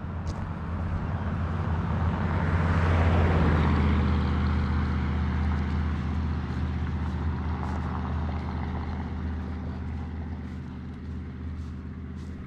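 A motor vehicle passing by: its engine noise swells to a peak about three seconds in, drops in pitch as it goes past, then fades slowly.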